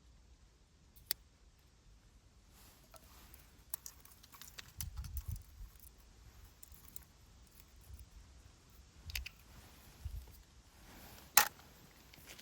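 Scattered clicks and knocks of objects being handled, with a sharp click about a second in, low thumps in the middle, and the loudest click near the end.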